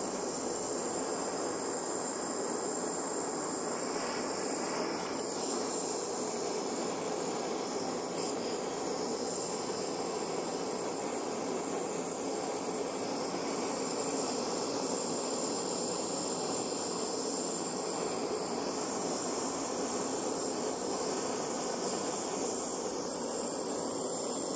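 Butane gas torch flame burning steadily with an even hiss, its flame played on the burnt remains of an aluminium drink can.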